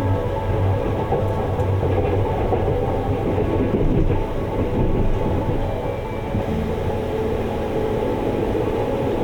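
Sunrise Izumo sleeper train (285 series electric sleeper) running along the line: a steady low rumble of wheels on the track.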